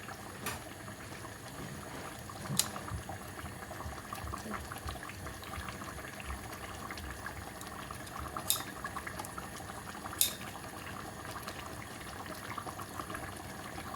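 A pot of whole tomatoes boiling in water: a steady bubbling, with the tomato skins loosening and splitting. Four sharp clicks of a metal ladle against the pot come through it.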